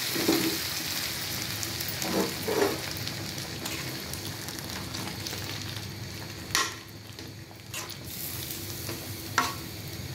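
Hot spice tempering fried in oil sizzling as it is poured into a curry in a metal pot, the sizzle dying down over the first few seconds. Then a metal spatula stirs it in, knocking against the pot a few times near the end.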